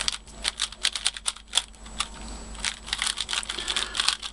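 QiYi Valk3 3x3 plastic speed cube being turned rapidly by hand: a quick, irregular run of plastic clicks and clacks from its layers snapping into place, coming faster in the second half.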